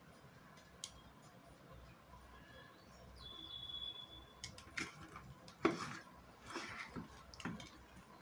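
Faint ticks and scrapes of metal tweezers bridging the LED contacts on the bulb's LED board, then irregular handling noise as the bulb is moved, the loudest knock a little over halfway through. A brief high steady tone sounds about three seconds in.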